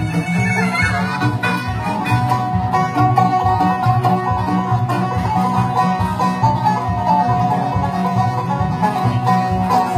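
Bluegrass band playing an up-tempo instrumental, with banjo picking prominent over a steady low pulsing rhythm; a long held note rides on top from about three seconds in.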